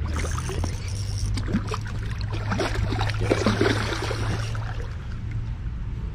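Hooked common carp thrashing and splashing at the water's surface close to the bank. The splashes are irregular and come thickest in the middle, over a steady low hum.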